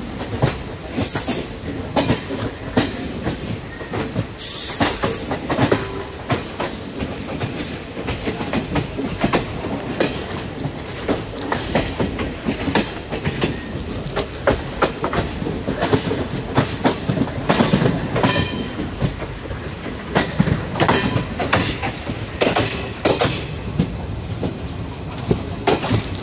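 Passenger train's coaches rolling along the track, heard close to the wheels from the coach doorway: a steady run with irregular clacks as the wheels cross rail joints and points. Brief high squeals come twice in the first five seconds.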